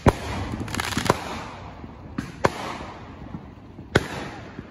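Aerial fireworks bursting: about five sharp bangs, the loudest just after the start, with crackling between them.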